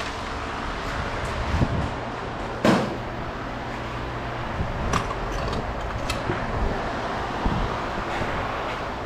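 Steady scrap-yard background rumble with several sharp knocks of scrap metal pieces being handled, the loudest about three seconds in.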